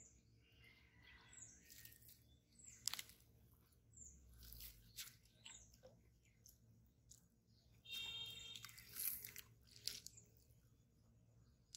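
Faint outdoor quiet with a small bird repeating a short, high, falling chirp about once a second. Scattered clicks and rustles come in between, busiest a little past two thirds of the way in.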